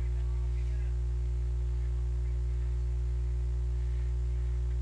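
Steady low electrical mains hum with a buzz of even overtones above it, unchanging.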